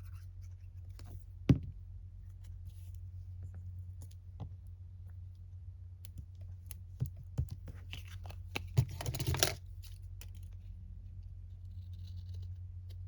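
Paper being handled and cut at a craft desk: a sharp tap about a second and a half in, scattered light clicks, and a short stretch of paper rustling and snipping around eight to nine seconds, over a steady low hum.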